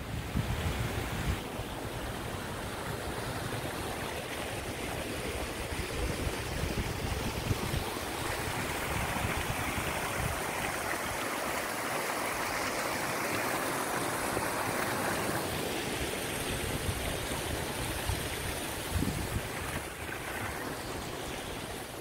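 A small rocky mountain stream running and trickling over stones, coming up about eight seconds in and cutting off suddenly about fifteen seconds in. Wind buffets the microphone with a low rumble around it, strongest near the start and end.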